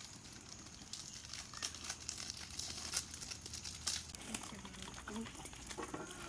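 KitKat bar wrappers being torn open and crinkled by hand, the red wrapper and the inner foil giving a run of irregular sharp crackles.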